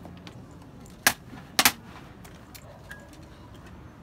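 Two sharp claps about half a second apart, a little over a second in: ceremonial guards' rifle drill, the rifles brought up from the ground in crisp movements against hands and uniforms.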